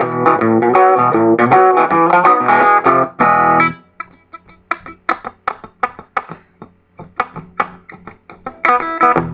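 Electric guitar playing a boogie-blues groove: full ringing chords for the first few seconds, then short, sparse plucked notes with gaps between them, and full chords again near the end.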